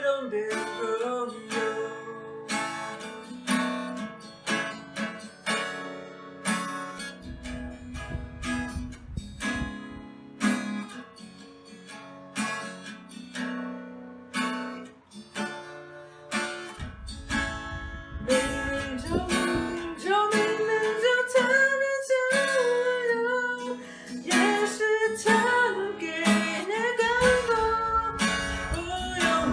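Acoustic guitar strummed and picked, with a voice singing along, most clearly in the second half.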